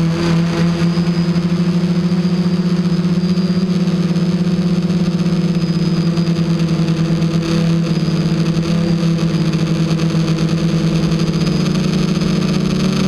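Hoverthings Flip FPV quadcopter's motors and propellers in fast forward flight: a loud, steady, wavering buzz that shifts a little in pitch with the throttle.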